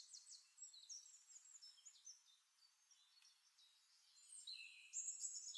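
Near silence: faint high-pitched chirps and short tones, a little stronger near the end.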